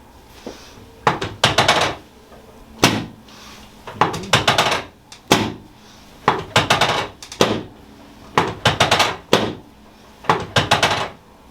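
Sharp mechanical clicks and knocks from chiropractic adjusting equipment, coming in repeated short bursts: a quick run of several strikes, then a single heavier knock, about seven groups in all.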